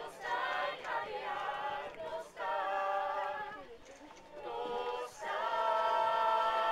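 A small mixed group of young men and women singing unaccompanied in Welsh, in phrases with short breaks, ending on a long held note.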